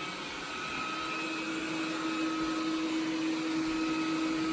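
Xiaomi Mijia 3C robot vacuum running: a steady whirring hum with a held tone, growing slightly louder about a second in.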